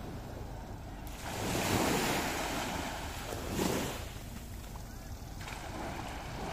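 Small waves breaking and washing up on a sandy beach, the wash swelling louder a little over a second in and again a couple of times after, with wind on the microphone.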